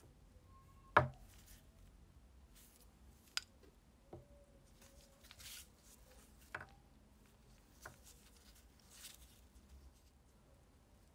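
Five sharp taps and clicks, the loudest about a second in, with brief soft rustling between: gloved hands handling a gasoline lighter's metal insert and a new wick on a wooden table.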